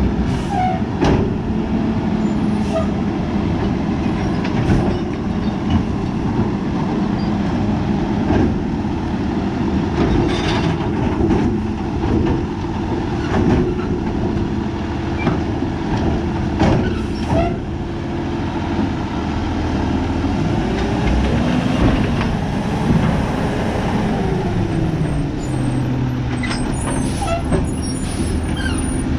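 Peterbilt split-body garbage truck's diesel engine running steadily. Its pitch rises and falls again a little past twenty seconds in, and a few brief sharp sounds cut in along the way.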